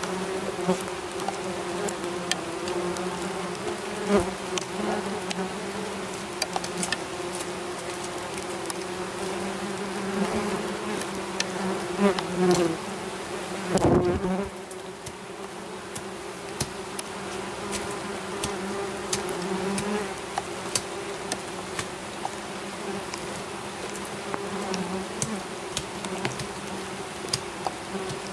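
Swarm of wasps buzzing close by, a steady droning hum whose pitch wavers slightly, with scattered sharp clicks and a thump about fourteen seconds in.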